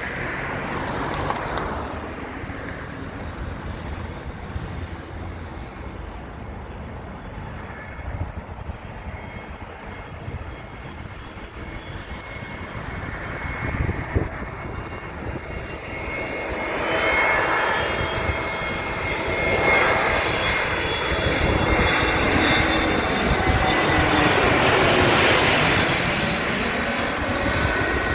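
Airliner engines building to a loud pass about two-thirds of the way in. Their whine bends in pitch as the aircraft goes by, then eases a little near the end.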